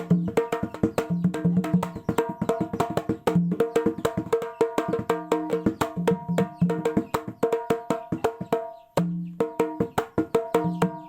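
A homemade kendang (Indonesian two-headed hand drum) played in a fast, steady rhythm of sharp, ringing strokes, with a short break about nine seconds in. Its maker calls its sound strange.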